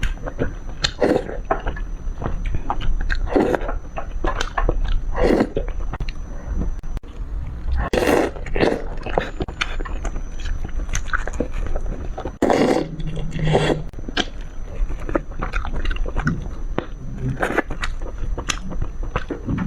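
Close-miked eating sounds: a person biting and chewing food with wet mouth noises, in irregular strokes about once a second.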